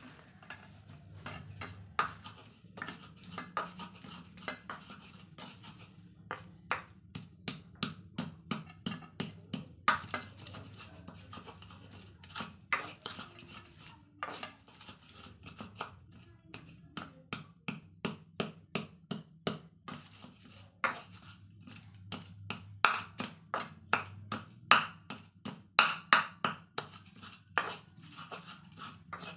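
Stone pestle (ulekan) pounding and grinding a chili, garlic and candlenut spice paste in a cobek mortar: repeated sharp knocks, about two or three a second, loudest near the end.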